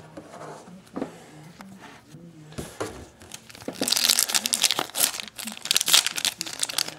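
Foil trading-card pack wrapper crinkling and tearing as hands rip it open. It is loud and dense from about four seconds in, after a few seconds of faint card handling.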